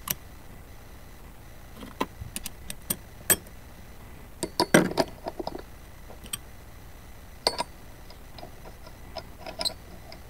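Steel sockets clicking and clinking as they are handled and tried on the bolt of a sliding-door roller bracket: a scatter of sharp metallic clicks, busiest about halfway through.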